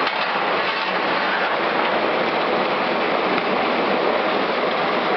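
Steel bar drawing machine running, its roller chain pulling a steel bar along the draw bench with a steady, even rattling noise.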